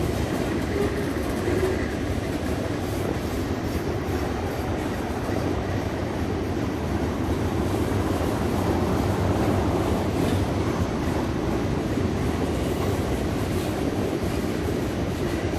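Freight train boxcars rolling past, a steady rumble of steel wheels on the rails.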